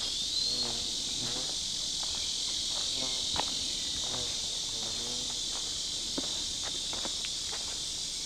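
Steady, high-pitched chorus of insects trilling without a break, with scattered footsteps on a dirt path.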